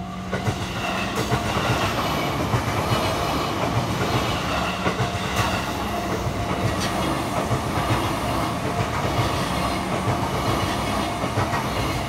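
Ōme Line E233-series electric train passing through a level crossing at speed, wheels clattering over the rail joints in a rapid run of low knocks with the occasional sharp click.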